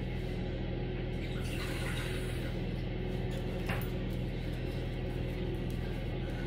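Cocker spaniel lapping water from a small bowl, soft and faint, over a steady low hum.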